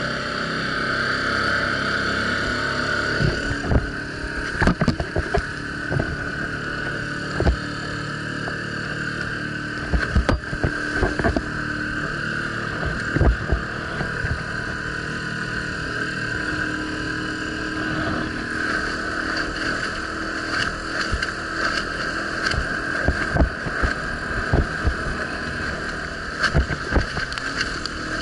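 Tohatsu outboard motor running steadily at speed, with irregular thumps every second or few as the small dinghy's hull slaps on the chop, and some water rush.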